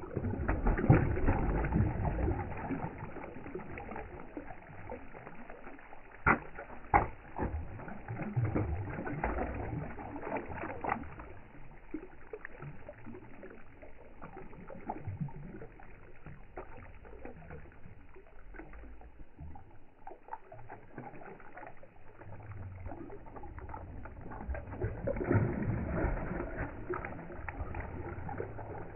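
Water splashing and sloshing at the surface, loudest in the first few seconds and again near the end, with a few sharp knocks in between.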